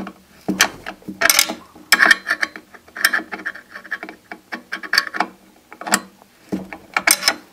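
Small box-end wrench tightening a nut on a bolt: irregular metal clicks and clinks as the wrench is turned and reset on the nut.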